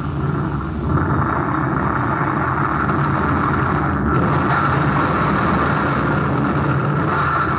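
Dense, steady harsh noise from a live improvisation on a synthesizer and an invented instrument, the guillotine. A deep rumble runs underneath, with a thin high whine on top that comes and goes.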